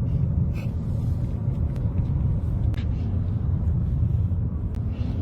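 Steady low rumble of a vehicle driving, broken by a few sharp cracks.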